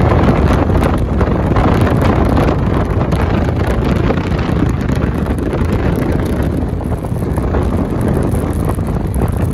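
Wind buffeting the microphone of a camera on a vehicle moving at speed, with road and vehicle noise underneath: a loud, steady rumble.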